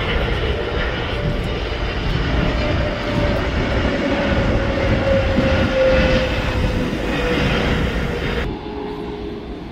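Jet airliner passing low overhead: a loud, steady rushing rumble with a tone that slowly falls in pitch, dropping away sharply about eight seconds in.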